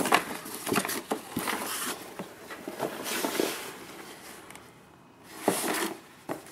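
Cardboard box and paper folders being handled: a sharp bump right at the start, then rustling and scraping of paper and cardboard as a small cardboard box is pulled from between tightly packed folders, with a second burst of rustling about five seconds in.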